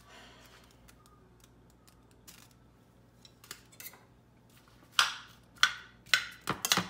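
A metal spoon clinking several times against a skillet as sliced onions and green peppers are stirred, the sharp strikes coming about half a second apart over the last two seconds. A few faint ticks come before them.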